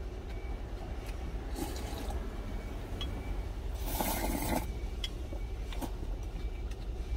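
A person slurping ramen noodles once, noisily, about four seconds in, with a few light clicks of chopsticks against the food container. A steady low hum runs underneath.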